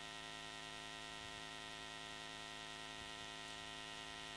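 Steady electrical mains hum, a buzzy stack of evenly spaced tones with a faint hiss above, unchanging throughout.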